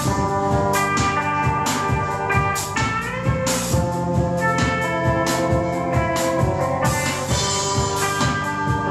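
Live band playing an instrumental passage: held synthesizer notes layered over electric guitar, with a drum kit keeping a steady beat.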